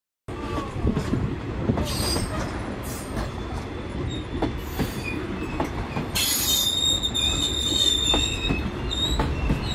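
Shosholoza Meyl passenger coaches rolling past at close range, a rumble with scattered clicks of wheels over the rails. About six seconds in, a steady high-pitched wheel squeal sets in and holds.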